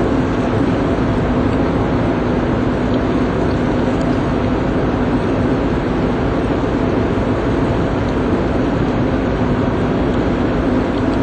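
Steady engine drone with a constant low hum, unbroken and unchanging throughout.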